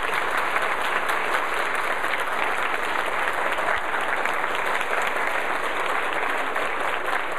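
Audience applauding steadily after an operatic aria ends.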